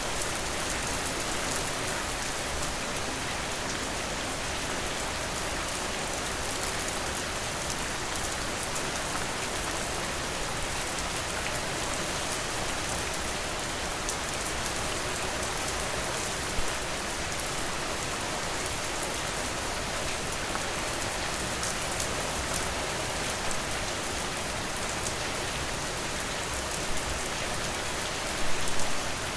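Steady rain, an even hiss with fine drips and patter, with a few short louder pops or drops, the loudest of them in a cluster near the end.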